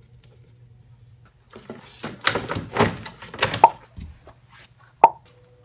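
Knocking and rustling at a car's rear door as its trim panel is handled, for about two seconds. A single sharp knock follows about five seconds in.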